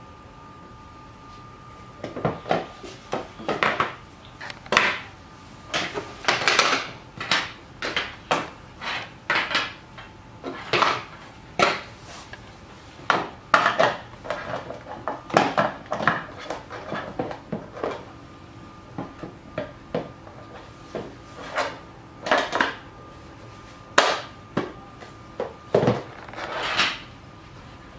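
Plastic mandoline slicer and its blade inserts being handled: irregular clicks, clacks and knocks of hard plastic parts against each other and the wooden table, sometimes in quick clusters.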